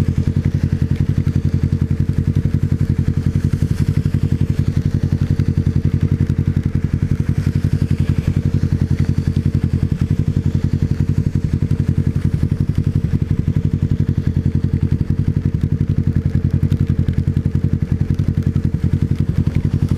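Motorcycle engine running at a steady speed on the move, a fast, even pulsing that holds one pitch throughout.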